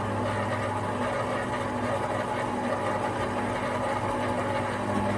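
Electric mixer motor running steadily, a constant hum.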